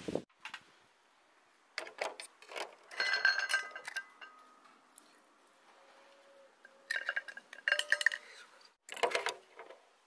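Metal tongs and oyster shells clinking and rattling against a square steel can of steamed oysters, in several short bouts, each with a brief metallic ring.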